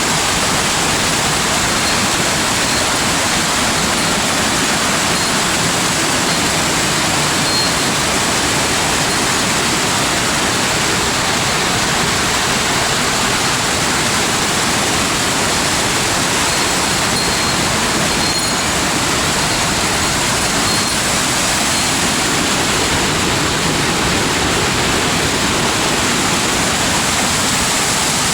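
Waterfall in a mountain gorge, water rushing in a loud, steady, unbroken noise.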